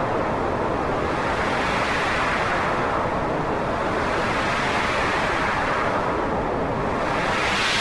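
Wind blowing: a continuous rushing noise that swells and eases in gusts every few seconds.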